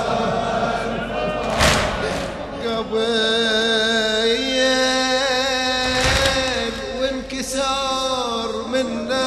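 Male voices singing the drawn-out, held melody of a Shia latmiya lament in chorus, with three sharp thumps cutting through: one about one and a half seconds in, and two more near six and seven and a half seconds.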